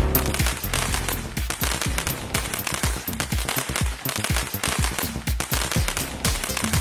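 A 100-shot 'Titanium Fire' firework cake firing a rapid, steady string of shots, several a second, each a sharp report.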